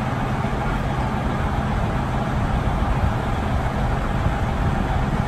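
Diesel engine of heavy construction equipment running steadily, a constant low drone with no knocks or bangs.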